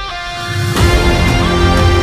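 Background music: a thin stretch of held tones that, under a second in, gives way to a louder, fuller section with a steady beat.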